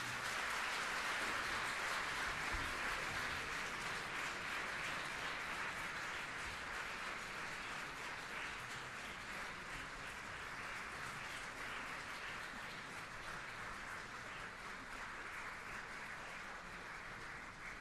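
Audience applauding steadily through the dancers' bows, slowly dying down.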